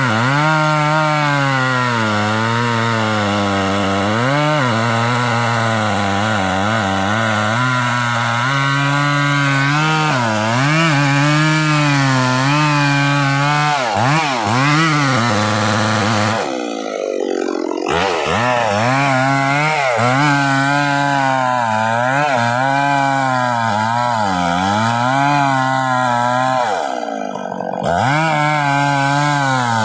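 Stihl MS 381 two-stroke chainsaw cutting hard trembesi (rain tree) wood. Its engine speed wavers constantly under load, and about halfway and again near the end the note drops away briefly and picks back up. The uploader puts the saw's coughing down to the hardness of the wood.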